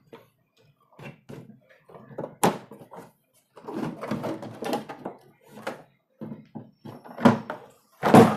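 Plastic housing of a Pureit Marvella water purifier being handled and its front cover pulled off: scattered clacks and rustles, with a sharp knock about two and a half seconds in and two louder knocks near the end.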